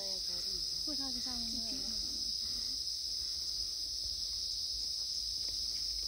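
A steady, high-pitched insect chorus that runs without a break, with faint voices talking in the background during the first couple of seconds.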